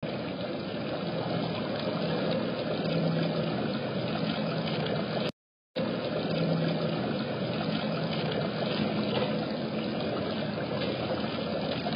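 Small rock waterfall splashing steadily into a pond, broken by a half-second gap of silence a little past five seconds in.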